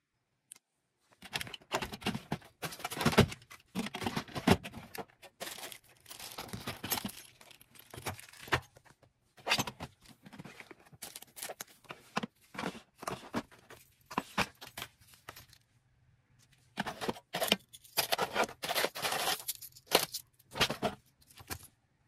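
Plastic packaging crinkling and tearing, mixed with the jangle of metal keychain pieces, as an order is packed by hand. The noise comes in two busy stretches of irregular crackling and clicking, with a short pause about two-thirds of the way through.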